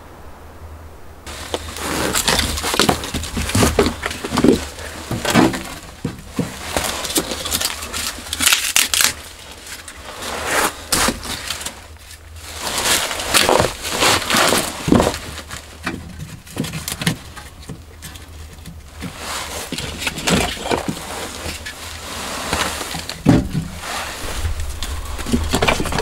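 Irregular knocks, clatters and crinkling rustles of split firewood and kindling being handled and stacked into a small wood stove.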